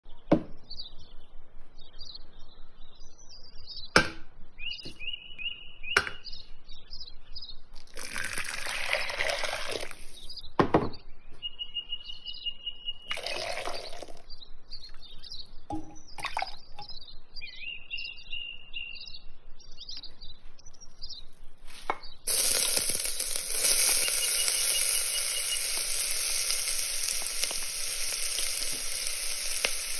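Water poured into a glass bowl in two short bursts among faint high chirps and a few sharp clicks; then, about two-thirds of the way through, chopped onion starts sizzling in oil in a stainless steel pot, a sudden steady frying hiss.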